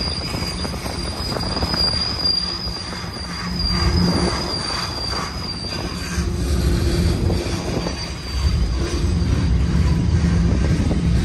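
Union Pacific manifest freight train's cars rolling past with a steady low rumble of wheels on rail. Over it there is a high, slightly wavering wheel squeal that fades out about six seconds in and briefly comes back.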